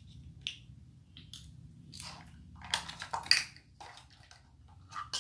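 Crinkling and light clicks of plastic kitchen items and their packaging being handled, with the loudest crackles about three seconds in.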